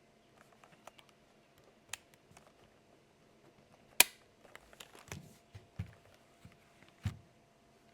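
Arzopa 87-key mechanical keyboard with linear switches being pressed key by key: scattered single clacks, one sharp loud click about four seconds in, then a few deeper thuds.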